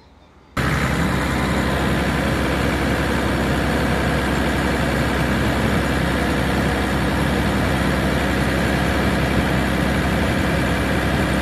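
Vehicle engine idling steadily, cutting in abruptly about half a second in.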